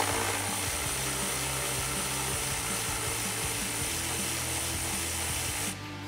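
Power tool spinning a T30 Torx socket on an extension, running steadily to back out a plastic-mounting bolt, then stopping abruptly near the end.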